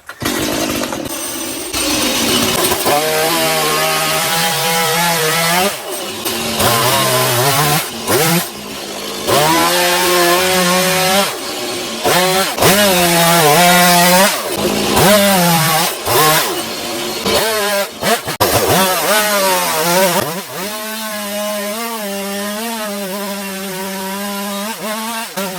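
Stihl MS 180 C two-stroke chainsaw revving up again and again as it cuts into a log, dropping back briefly between cuts, and running more steadily over the last few seconds.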